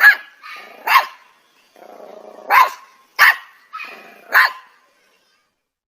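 Dog barking, a run of about five loud barks with fainter ones between, that stops after about four and a half seconds.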